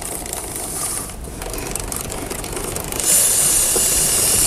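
A motorcycle's rear wheel turned by hand, its drive chain ticking over the sprocket. About three seconds in, an aerosol chain lube starts spraying onto the chain with a steady hiss.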